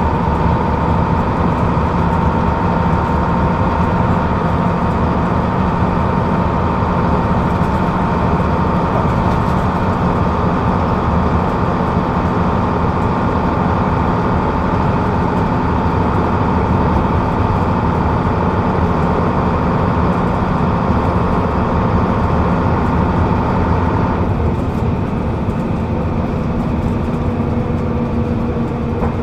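Rear-mounted Leyland O.680 diesel engine of a Leyland Atlantean double-decker bus, heard from the back seat above it, running steadily on the move with a low drone and a high whine over it. About 24 seconds in the whine stops and the sound eases slightly.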